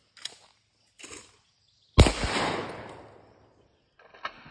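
A single shotgun shot about two seconds in, loud and sharp, with a long echoing tail that dies away over about a second and a half. A few fainter short sharp sounds come before it and one near the end.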